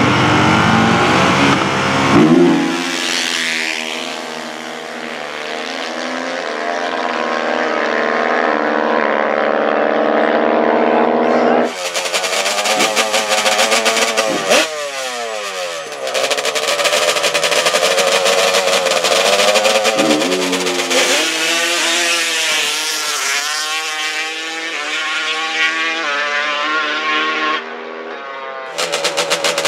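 Drag-racing ATV engines revving hard, the pitch climbing and falling in steps, with one steep fall in pitch about halfway through. From about twelve seconds in, a harsh, rapid-firing engine note revs up and down.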